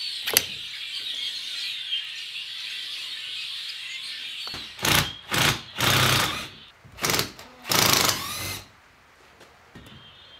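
A power tool run in five short bursts on the Land Rover Series 1 differential housing, each starting and stopping abruptly. Before the bursts, birds twitter steadily in the background.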